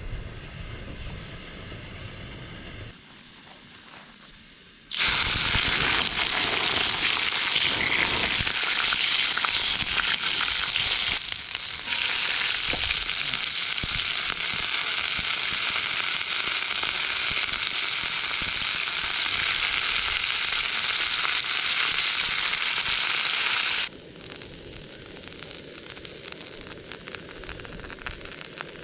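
Wagyu steak sizzling as it cooks. A loud, even sizzle starts abruptly about five seconds in and drops away suddenly near the end, with softer sizzling before and after.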